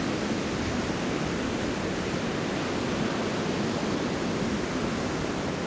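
Ocean surf breaking on a sandy beach: a steady, even wash of waves.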